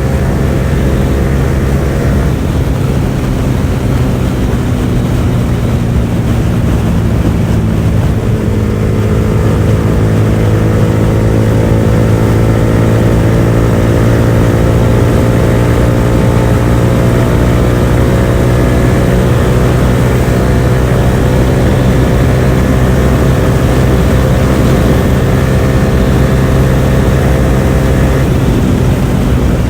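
Yamaha R15 V4's single-cylinder engine running hard at speed through an aftermarket R9 exhaust with no dB killer. Its note shifts about two seconds in, then climbs slowly for some twenty seconds before changing again near the end.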